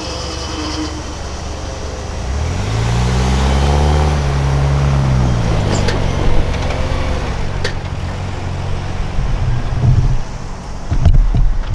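Road vehicles crossing a railroad grade crossing: one vehicle's engine passes close, its pitch rising and then falling, followed by a couple of sharp clunks from tyres going over the rails. Heavy low thumps near the end.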